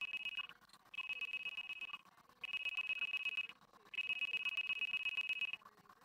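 MakerBot Replicator 2 3D printer's stepper motors whining at a steady high pitch as the print head moves, in four runs of one to two seconds with short pauses between them, stopping shortly before the end.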